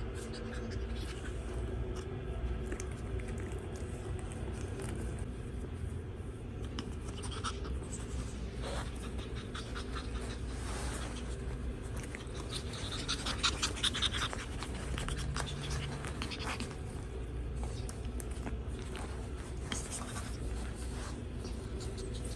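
Light scratching and rustling as small puppies move about and are handled on a fabric dog bed, over a steady low hum. A louder cluster of scratching comes about two-thirds of the way through.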